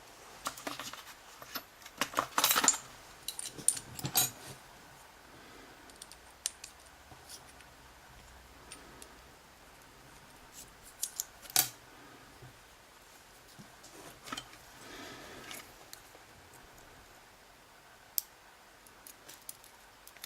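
Small metal lock parts and tools clicking and clinking as a pin-tumbler lock is taken apart, in scattered bursts: a cluster of sharp clicks about two seconds in, another around four seconds, a single sharp click near the middle and a brief soft scraping a few seconds later.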